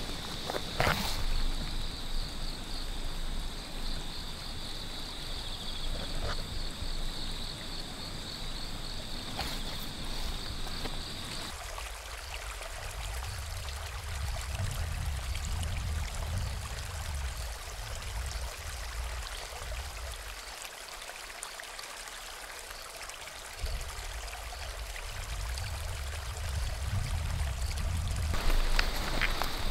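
A shallow stream flowing over a stony bed, an even rush of water. Before it, for about the first third, a steady high-pitched buzz runs over the grass scene; it returns near the end.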